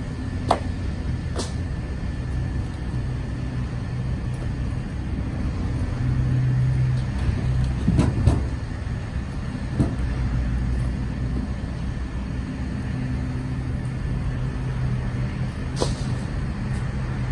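Split hickory firewood knocking wood on wood as logs are dropped onto a stacked pile: a handful of sharp knocks, the loudest pair about eight seconds in, over a steady low mechanical hum.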